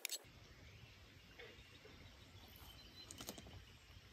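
Near silence: faint outdoor background noise with a couple of soft, short clicks.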